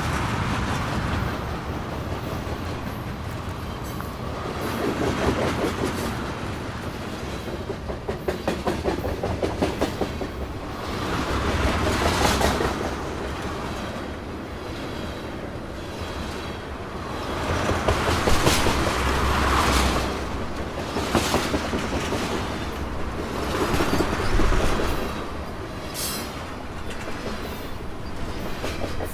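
Freight train cars rolling past, wheels clattering over rail joints in quick clickety-clack runs that swell and fade every few seconds, with brief high wheel squeal here and there.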